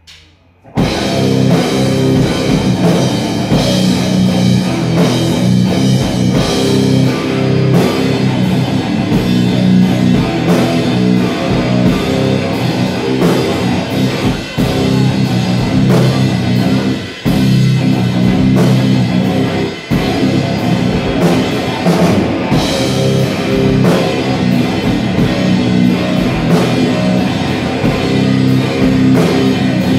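Live heavy rock: a distorted electric guitar riff over a drum kit, crashing in abruptly about a second in and driving on loudly, with a few very short breaks in the riff.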